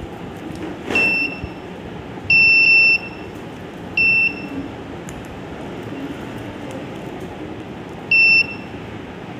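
The voting machine's buzzer beeps four times at one high pitch: a short beep with a click about a second in, a longer beep a little later, then two short beeps. The last comes as an RFID card is held to the RC522 reader, the beep that signals a card has been detected.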